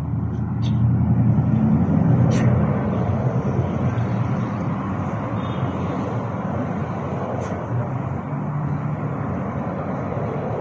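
Steady low background rumble, swelling about one to three seconds in, with a few brief high chirps.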